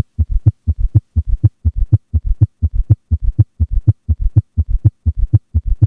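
Auscultation recording of a heart beating at 120 beats per minute with both an S3 and an S4: a summation gallop, where the extra sounds in diastole have fused so they can no longer be told apart or counted. Low thuds come in tight clusters, about two beats a second.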